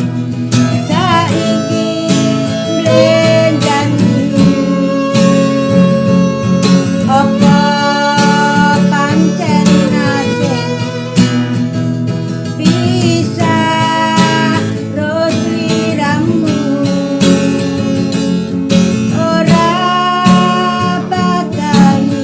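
Instrumental music led by guitar, with held melodic notes over a steady accompaniment.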